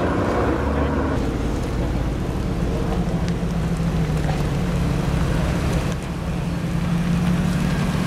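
Audi RS3 Sportback 8V's 2.5-litre five-cylinder TFSI engine with Audi Sport exhaust running at low speed as the car rolls slowly, a steady low drone from about three seconds in. In the first second another car's engine is heard passing.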